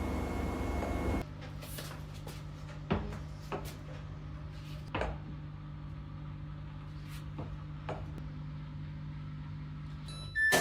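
A rumbling, vehicle-like noise with a steady high tone cuts off about a second in. A steady low hum follows, with a handful of separate light clicks and knocks, and a few chime-like tones begin right at the end.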